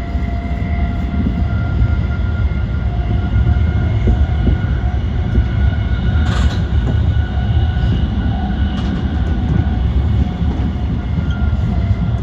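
JR East E235-1000 series electric train running along the line with a steady low rumble and faint steady whining tones. A brief sharper noise stands out about six seconds in.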